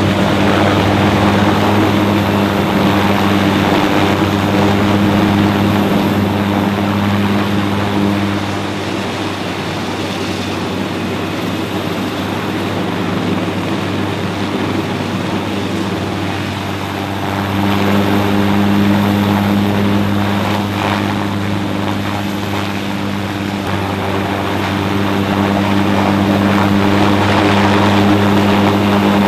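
Bell UH-1Y Venom (Huey) helicopter hovering low and setting down: a loud, steady rotor and turbine sound with an even hum underneath. It grows quieter for a stretch in the middle and louder again toward the end.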